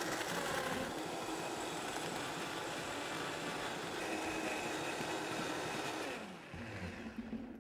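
High-powered countertop blender running at speed, crushing a trayful of ice cubes into a slushy green shake. The motor stops about six seconds in and winds down in falling pitch.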